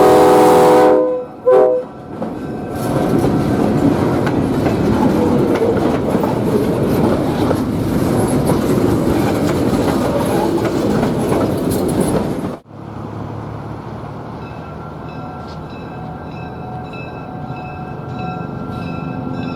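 A K5LA five-chime train horn sounds a chord that cuts off about a second in, followed by a brief toot. Then a train passes with loud rolling wheel noise and rail clatter for about ten seconds, before an abrupt switch to a quieter, steady locomotive rumble.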